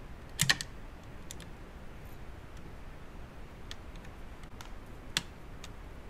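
Small metal clicks and ticks from a screwdriver working a screw in a turntable's control-panel chassis: a quick cluster of clicks about half a second in, a few faint ticks, and one sharp click near the end.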